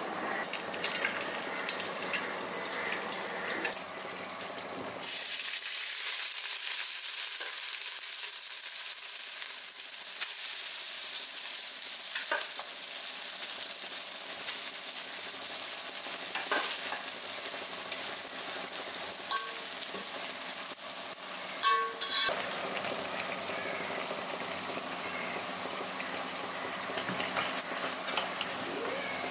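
Steady sizzling of food frying in hot ghee on a gas stove, louder from about five seconds in, with a few light clinks of a metal spoon against a steel pot.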